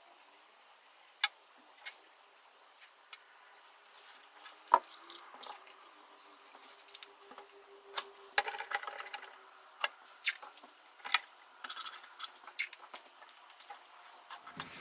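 Scattered sharp clicks and light wooden knocks as a thin wooden strip is glued onto a drawer edge and spring clamps and a quick-grip clamp are snapped on. The clicks come thicker from about eight seconds in, once the clamping starts.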